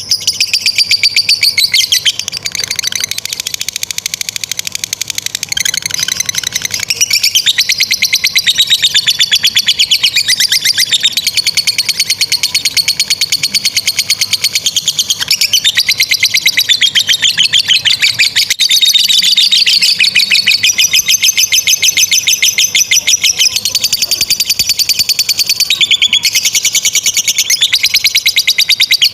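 Lovebirds singing the long, unbroken 'ngekek' chatter: a shrill stream of very rapid repeated notes, a little softer for a few seconds near the start.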